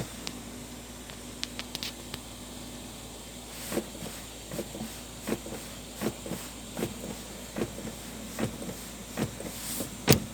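Front right passenger door lock of a car knocking with a metallic clack: a few faint clicks, then regular knocks about once every 0.8 seconds, the last one the loudest. The knocking comes from inside the lock mechanism itself, a sign of a loose or worn part in the lock.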